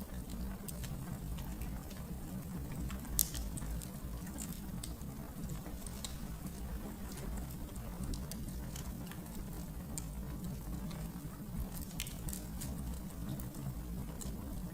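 Wood fire burning in a fireplace: a steady low rumble of the flames with irregular crackles and pops, the loudest pop about three seconds in.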